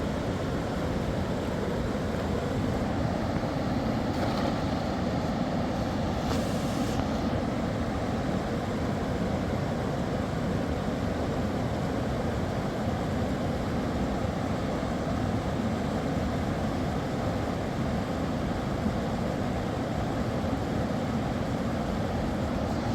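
A fast-flowing mountain river rushing steadily, a continuous even noise of running water.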